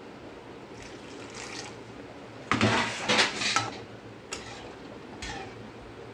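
Metal ladle stirring a chickpea curry in a metal kadai, scraping and clinking against the pan for about a second near the middle, followed by a couple of single clinks.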